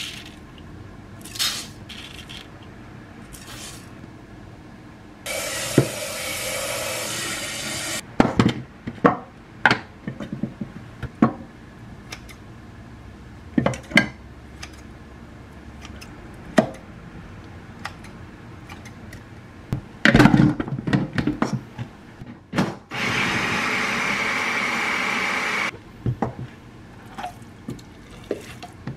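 Brown rice being prepared in a rice-cooker's inner pot: scattered knocks and clinks of the pot, container and utensils, and water running into the pot for about three seconds, twice, about five seconds in and again near the twenty-three second mark, as the rice is washed.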